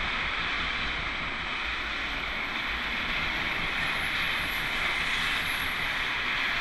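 Container freight train passing at speed: steady wheel-on-rail noise from the loaded container flat wagons rolling by. A faint high whine comes in about two seconds in.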